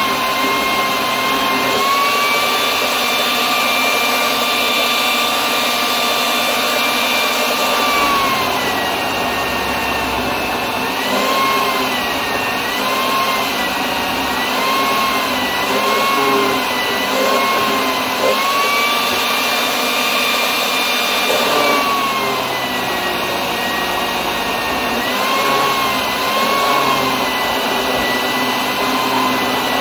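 Electric citrus-juicer attachment on a food processor base running, its motor giving a steady whine. The pitch dips and recovers several times as a halved orange is pressed down onto the spinning reamer.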